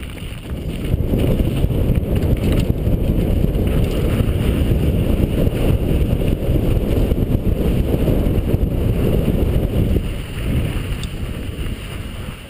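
Wind buffeting the camera's microphone during a fast downhill mountain-bike ride, mixed with the rumble of knobby tyres and the bike rattling over loose dirt and gravel. The rumble eases off about ten seconds in.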